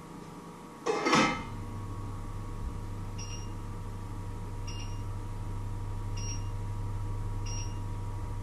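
A short metal clatter about a second in as a steel pot is handled. A steady electrical hum follows, with four short high beeps about a second and a half apart from a kitchen appliance.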